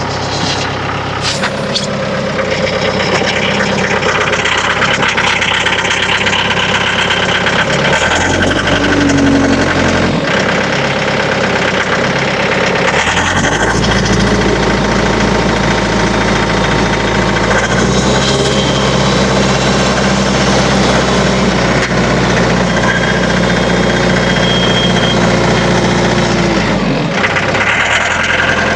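Mahindra tractor's diesel engine running under load while lifting a heavy oak log, its speed stepping up and down several times.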